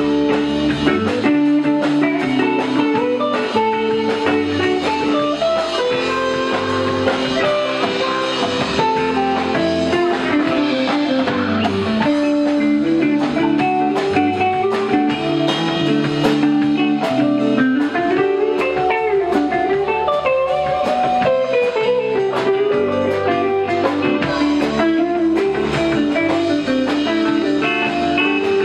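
Live rock band playing an instrumental jam with no singing: electric guitars, bass guitar, keyboard and drums, at a steady level throughout.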